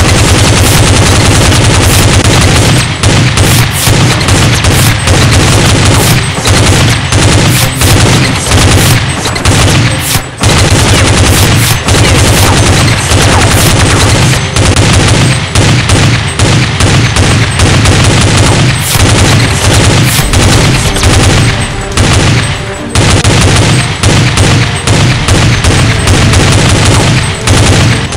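Loud, continuous rapid machine-gun fire sound effect, shot after shot with no letup except two brief breaks, about ten seconds in and again near twenty-three seconds.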